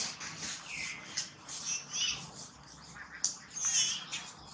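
Baby long-tailed macaque giving short, high-pitched squeaks, several times, some falling in pitch, over the rustle of dry leaves.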